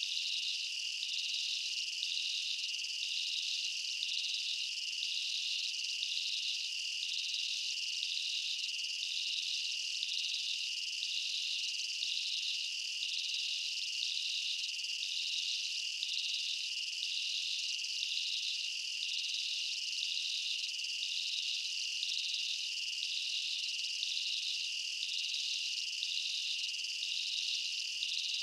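Chorus of insects: a high, shrill drone with an even pulsing layered just above it.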